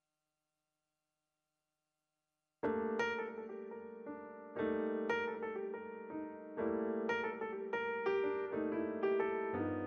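Near silence at first, then solo piano background music starts about two and a half seconds in, with a new chord struck every second or two.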